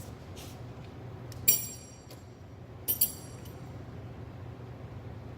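Metal tools and parts clinking with a bright ring: one sharp clink about one and a half seconds in, then two quick clinks about a second and a half later, over a steady low hum.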